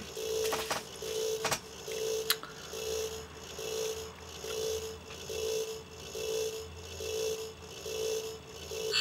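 Toy lie-detector game beeping in an even pulse, about three short beeps every two seconds, while a hand rests on its sensor: the machine is reading the answer before it gives its verdict. A few sharp clicks in the first couple of seconds.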